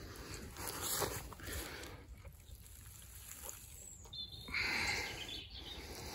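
Soft brushing and rustling of a hand sliding over the scales of a landed common carp lying on landing-net mesh, with louder swishes about a second in and around five seconds in.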